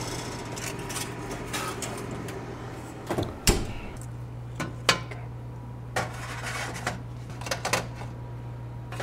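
Baking trays being handled at an oven: a few sharp clicks and knocks, the loudest about three and a half seconds in, over a steady low hum that gets stronger about four seconds in.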